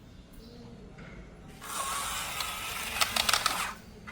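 A small mechanism whirring with rapid ratchet-like clicking. It starts about a second and a half in, the clicks crowd together near the end, and it stops just before the end.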